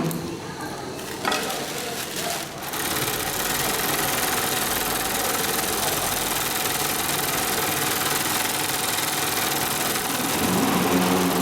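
Dürkopp Adler 72525-101 long-arm zigzag sewing machine, quiet at first with a single click, then from about three seconds in running steadily at speed as it stitches.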